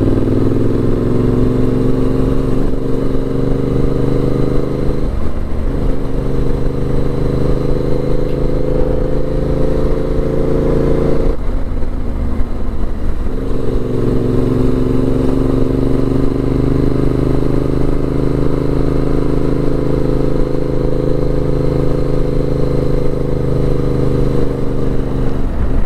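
Yamaha 689 cc parallel-twin motorcycle engine pulling steadily up a winding road, its pitch rising slowly. About eleven seconds in the engine note drops away for a couple of seconds, then picks up again and holds nearly steady.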